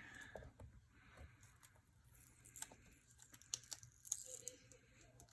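Faint crinkling and small ticks of vinyl lettering on transfer tape being handled and pressed onto card stock.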